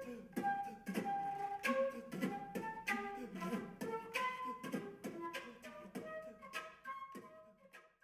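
Flute music: a quick melody of short, separate notes, each starting sharply, fading out near the end.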